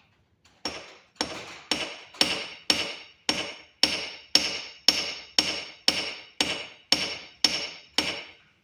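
A hammer striking copper wire jump rings to flatten them, about fifteen even blows at roughly two a second, each with a short metallic ring.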